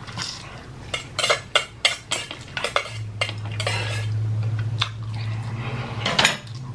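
Eating utensils clinking and scraping against a bowl of ramen noodles as they are stirred and lifted: a quick, irregular string of sharp clicks over a low steady hum.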